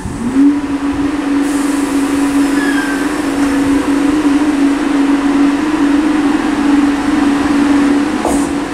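Class 313 electric multiple unit pulling away slowly from the platform: a steady electrical hum rises in pitch briefly at the start and then holds one note, over the rumble of the train, with a couple of clicks near the end as it runs over the crossover.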